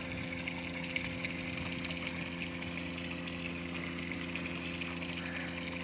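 Biofloc tank aeration running: a steady motor hum over water bubbling and lightly splashing.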